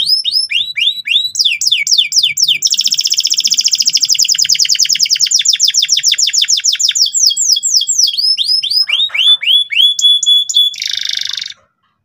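Domestic canary singing a loud, fast song: runs of rapid down-slurred whistled notes, a long rolling trill in the middle, and a short buzzy note before it stops abruptly near the end.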